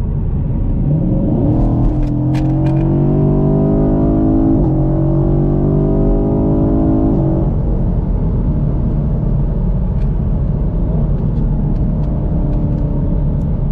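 2019 Camaro SS's 6.2-litre LT1 V8 on a full-throttle pull, heard inside the cabin. The revs climb, drop at one upshift of the 10-speed automatic about four and a half seconds in, and climb again. The throttle closes a little after seven seconds, leaving a steady engine and road drone at cruising speed.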